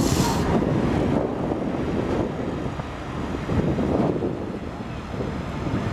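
Farm stock tractor's engine running under load as it drags a weight-transfer pulling sled slowly down a dirt track, a steady rumble that eases off slightly around the middle.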